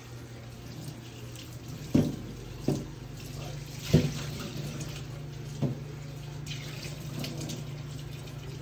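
Cold tap water running into the kitchen sink as whole okra pods are rinsed in a metal bowl. Four sharp knocks break through the running water, the loudest about four seconds in.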